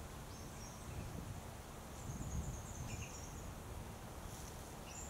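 Outdoor ambience: short runs of quick, high-pitched chirping calls, three times, over a low steady rumble.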